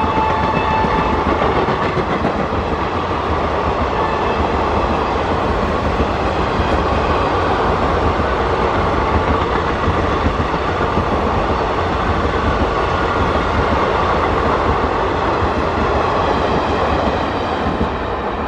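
ICF passenger coaches of an express train running past at speed close by, a steady rush of wheel and rail noise that eases slightly as the last coach goes by near the end. An electric locomotive's horn trails off about a second in.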